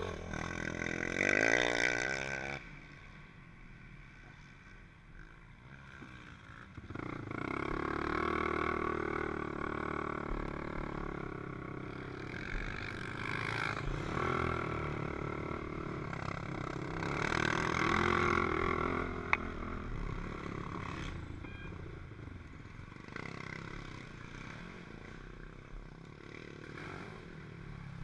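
Dirt bike engine revving sharply with rising pitch, dropping back to a quieter low run, then pulling under load for a long stretch with revs rising and falling, easing off near the end.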